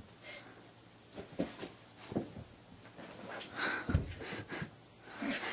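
Bed covers and pillows rustling in short swishes as they are jostled, with a soft thump about four seconds in.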